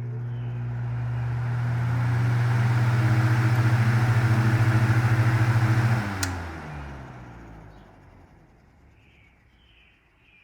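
Vintage Westinghouse oscillating table fan starting up: a steady motor hum with the rush of moving air swelling over the first few seconds. About six seconds in, the hum stops suddenly, a click follows, and the air noise fades out over about two seconds as the blades spin down.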